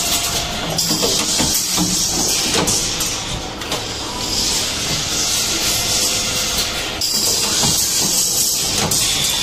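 Automatic stainless steel ring cutting and welding machine running: a loud hiss that shifts in level every few seconds, with a few short knocks from its moving parts.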